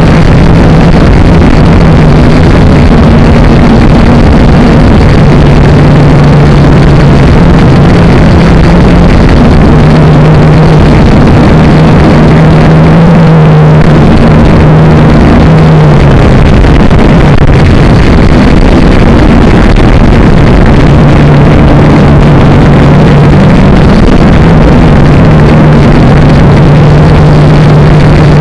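Quadcopter drone's electric motors and propellers running, heard up close from the drone's onboard camera: a loud steady buzz over a rushing hiss, its pitch shifting slightly up and down as the drone manoeuvres.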